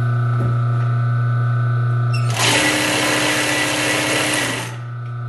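Reliable MSK1245B compound-feed walking foot sewing machine running its integrated bobbin winder: a steady motor hum, with a louder, busier mechanical whir starting about two and a half seconds in and lasting about two seconds before the hum settles back.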